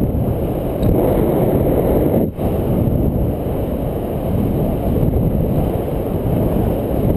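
Wind noise from the airflow of paraglider flight buffeting a camera microphone: a loud, steady low rush, with a brief dip a little over two seconds in.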